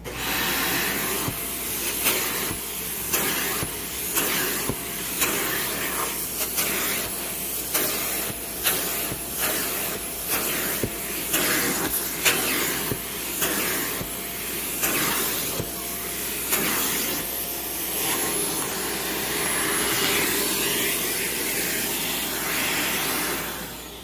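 Shark Stratos bagless upright vacuum running with suction through its hose and handle while it is worked over a fabric couch: a loud, steady rush with a thin steady tone and a surge about once a second. It starts suddenly as it is switched on and winds down near the end.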